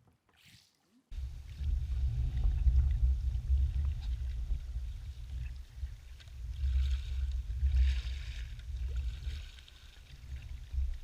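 Heavy low rumble buffeting the microphone of a camera on a sea kayak on the water, starting abruptly about a second in, with short splashy hisses near the middle.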